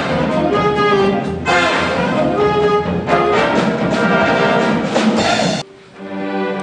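A student jazz band playing, with saxophones and trumpets. It cuts off abruptly near the end and a string orchestra of violins and cellos takes over with quieter, held bowed notes.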